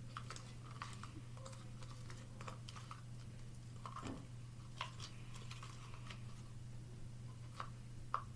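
Scattered light clicks and taps from slime-making supplies, a measuring cup and containers, being handled, with a steady low hum underneath.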